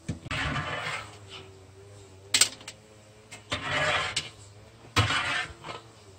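Broth splashing and dripping as a long-handled metal strainer scoops herb dregs out of a cast-iron cauldron, in three short bursts, with a few sharp metal clinks against the pot.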